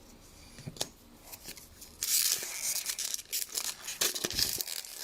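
Crinkling and tearing of a foil trading-card pack wrapper being opened by hand. It starts about two seconds in, after a few faint clicks.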